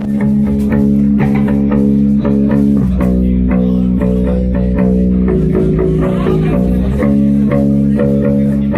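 Live shoegaze band playing: sustained electric guitar chords with steadily picked notes over a loud bass guitar.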